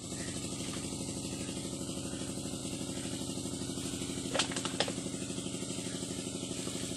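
Engine idling steadily with an even, rapid throb of about ten pulses a second. Two short knocks come a little past the middle.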